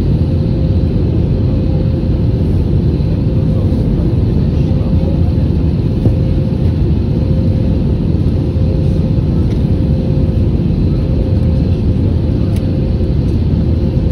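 Cabin noise of a jet airliner in its climb: the steady, loud roar of the under-wing turbofan engines and rushing air, with a faint steady hum at one pitch running through it.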